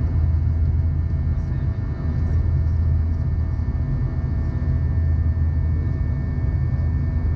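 Steady low drone inside the cabin of an Airbus A319 in flight, from the airflow and its IAE V2500 engines, with a few faint steady tones above it.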